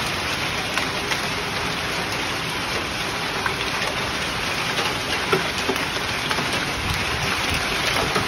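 Rain falling in a steady downpour: a constant hiss with scattered sharp taps of drops striking close by.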